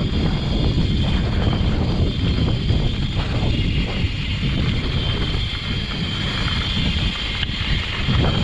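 Mountain bike rolling along a dirt singletrack: a steady rumble of tyres on the trail and rattling of the bike, with wind buffeting the microphone.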